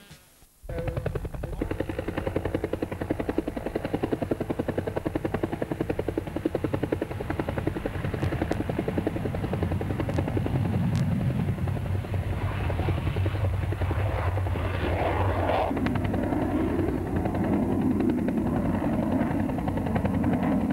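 Swedish Air Force Hkp 3 (Agusta-Bell 204) helicopter hovering low, its two-bladed main rotor beating in a rapid, regular rhythm over the turbine's running. The sound starts about half a second in.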